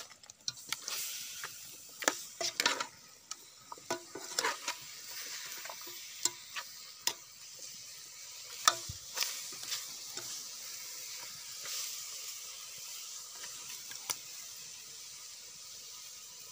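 Metal spoon stirring and scraping native chicken pieces in an aluminium pot, with a steady sizzle as the meat sautés. Sharp clicks of the spoon against the pot come thick in the first half and thin out later.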